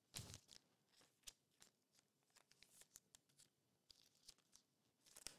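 Faint handling noise of trading cards and a rigid plastic card holder being picked up and set down on a mat: light scattered rustles and clicks, the strongest just after the start and another near the end.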